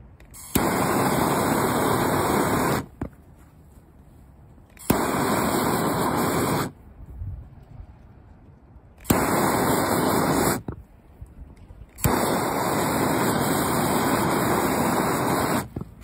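Hand-held torch firing in four blasts of about two to three and a half seconds each, every one lit with a sharp click and cut off abruptly, as it melts and burns the end of a synthetic rope to seal it against unraveling.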